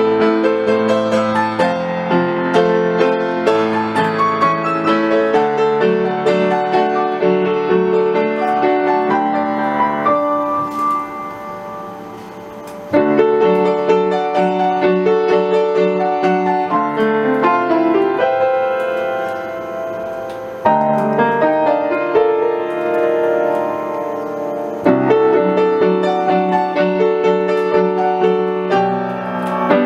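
Background piano music, a continuous run of notes and chords; it softens for a couple of seconds about ten seconds in, then starts up again abruptly.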